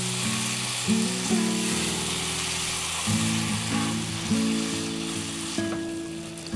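Shredded beef and tomato sauce sizzling in a pan, under background music of held notes that change every second or so; the sizzle thins near the end.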